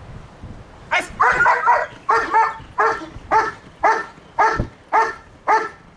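A dog barking over and over, about two barks a second, starting about a second in.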